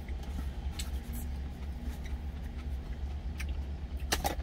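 Light clicks and taps of an insulated lunch container being handled and closed, with a louder double click near the end, over a steady low hum.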